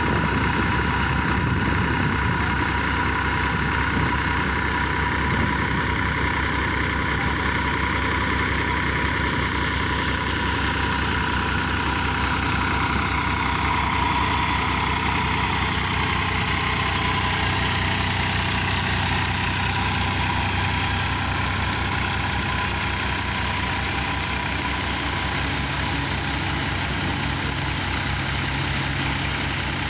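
Tractor-driven multicrop thresher running steadily while threshing coriander: the tractor's diesel engine runs at a constant speed under the thresher's drum and fan, with a steady high whine over it.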